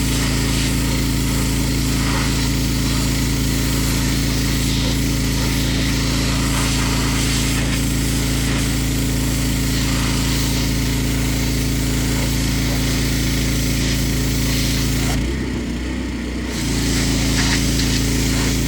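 Pressure washer running steadily, its engine humming under the hiss of the spray. Near the end the spray noise drops out for about a second while the engine note changes, then the spray starts again.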